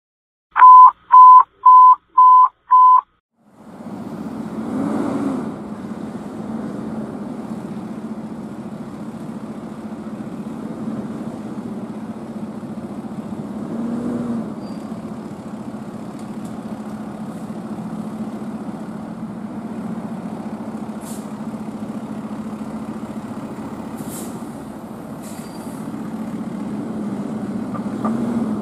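Five short, loud electronic beeps, then a 2023 Sutphen Monarch aerial fire truck's diesel engine running steadily as it pulls out of the station, swelling briefly twice and growing louder near the end.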